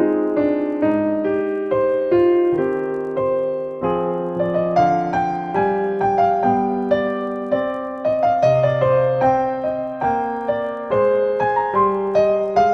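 Background piano music: a slow, gentle melody of single notes that ring and fade, a new note about every half second.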